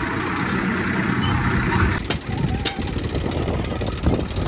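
Tractor engine idling steadily. About two seconds in it drops lower, and a few sharp metal clicks and knocks follow, the last near the end, as the trolley's rear latch is worked.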